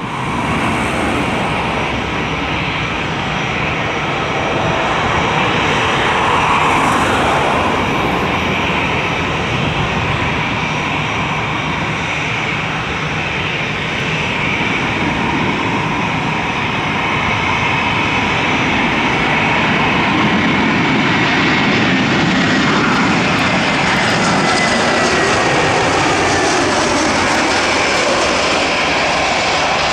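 Jet engine noise of an Airbus A320-214 (CFM56-5B turbofans) on landing approach: a loud, steady engine noise, with a high whine that slowly falls in pitch in the second half as the airliner passes close.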